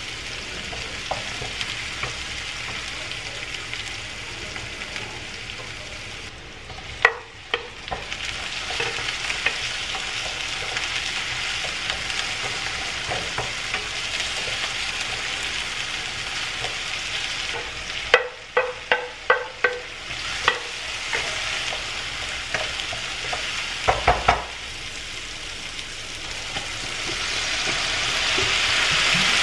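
Chopped tomatoes and aromatics sizzling in a wok on a gas burner while being stirred with a wooden spatula. There are sharp clicks of the spatula against the pan now and then, with a quick run of about six midway. Near the end water is poured into the hot wok and the sizzle grows louder and steamier.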